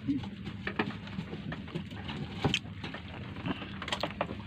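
A motor hums steadily at a low pitch, with scattered light clicks and taps over it.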